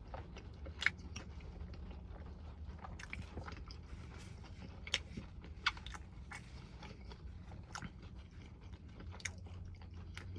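A person chewing and biting food close to the microphone, with scattered short wet mouth clicks and smacks.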